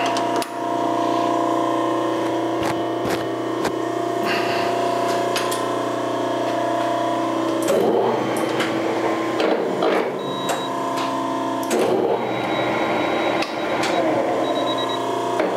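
Metal lathe running in low gear, its geared headstock giving a steady multi-tone whine, as it turns a dry motorcycle-type multi-plate clutch against a torque adapter. Scattered sharp clicks throughout, and two spells of rough rasping about halfway through and again near the end; the dry clutch is not slipping, its holding torque being beyond the meter's range.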